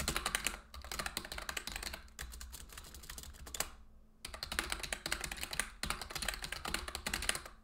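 Rapid typing on a computer keyboard: fast runs of keystroke clicks, with a brief pause about four seconds in before the typing resumes.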